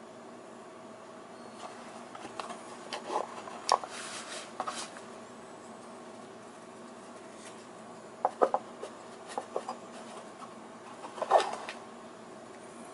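Handling noise: scattered light clicks and rubbing sounds in three short clusters over a steady hiss.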